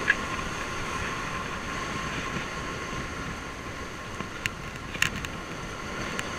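Steady outdoor background rush with a hum in it, and a few short sharp clicks about four and five seconds in as a tape measure is pulled out and handled against a fish.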